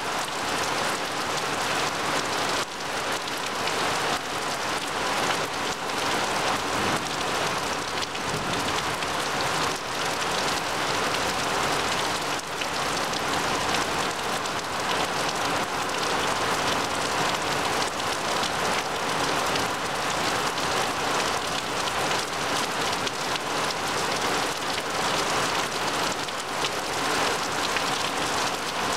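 Heavy rain falling steadily on a lawn and tree leaves: an even hiss of countless drops that neither builds nor fades.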